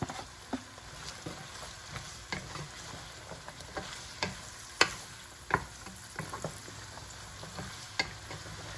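String beans sizzling in hot oil in a pot while a wooden spatula stirs them, with irregular sharp knocks of the spatula against the pan; the loudest knock comes a little before the middle.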